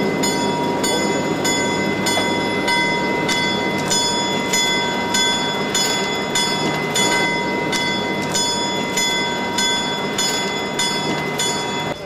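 Western Pacific EMD F-unit diesel locomotive moving slowly past, its bell ringing steadily about twice a second over the low rumble of the diesel engine.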